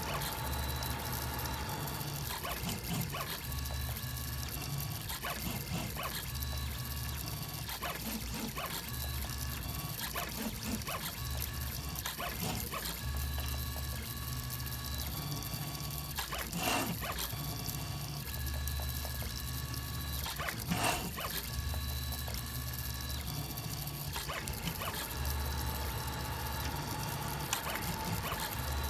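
3D printer's stepper motors whining as the print head and bed move, the tones changing pitch and switching on and off every second or two as the moves change, over a low hum that comes and goes with them. Two short sharp clicks about 17 and 21 seconds in.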